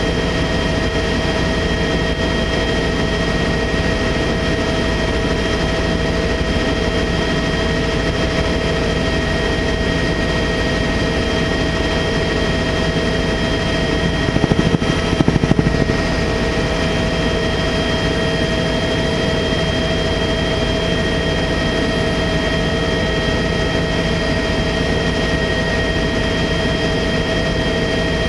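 Sightseeing helicopter in flight, heard from inside the cabin: a steady din of rotor and turbine noise with constant high whining tones. It swells briefly louder about halfway through.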